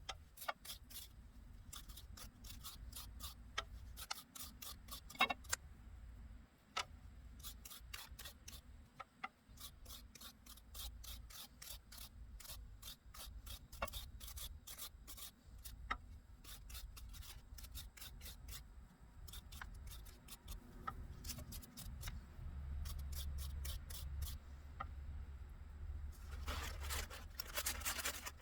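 Wire bristle brush scrubbing vinegar-softened paint off metal drawer pulls: many quick, faint, scratchy strokes, over a low steady hum.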